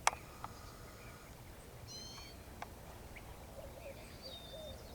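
Faint creekside ambience with a few sharp clicks and small birds calling: a quick run of chirps about two seconds in and a thin whistled note near the end.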